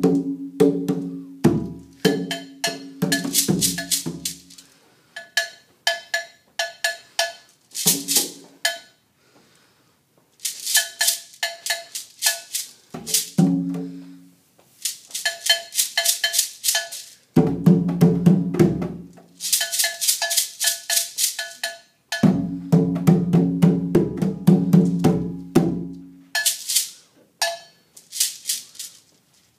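Small percussion group playing hand drums, a shaker and a wood block struck with a stick, in quick rhythmic phrases with short breaks between them. The deep drum strokes come in strongly in some passages and drop out in others, while the bright wood clicks keep going.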